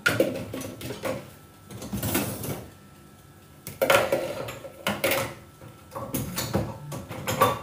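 Dishes and plastic bowls knocking and clattering against a dishwasher rack as it is unloaded, in several short bursts.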